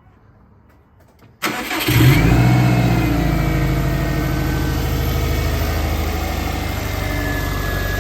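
Subaru WRX's flat-four boxer engine, fitted with new equal-length headers, starting about a second and a half in: a short crank, the engine catches with a brief flare in revs, then settles into a steady idle.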